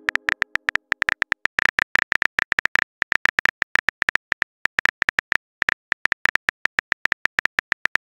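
Rapid phone keyboard click sounds as a text message is typed out, about eight to ten taps a second with a few short pauses.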